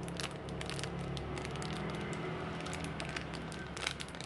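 Crinkling of a clear plastic bag and soft handling noise as a small foam squishy toy is squeezed in the hands, in many quick, irregular crackles. A steady low hum runs underneath.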